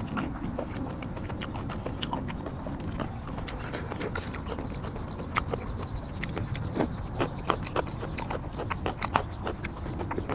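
Close-up eating sounds of a person chewing raw shrimp in a spicy chili sauce: wet mouth clicks and smacks, plus spoon clicks. The clicks are sharp and irregular, getting busier about halfway through, over a steady low rumble.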